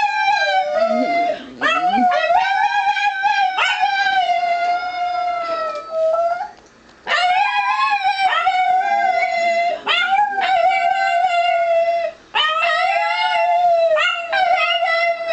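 Pet dog howling in a series of long, drawn-out howls, about five in all, each holding a wavering note and separated by short breaths.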